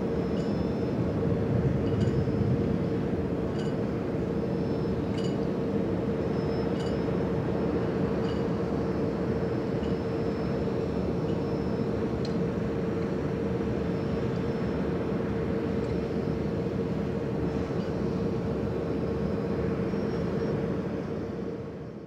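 A quadcopter drone's motors and propellers running steadily: a constant hum over a rushing noise, with faint high ticks about every second and a half. It fades out at the very end.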